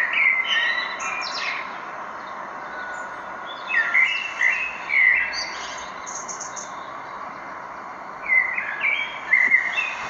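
Songbirds singing in short chirping phrases, in three bursts of song a few seconds apart, over a steady rushing hiss.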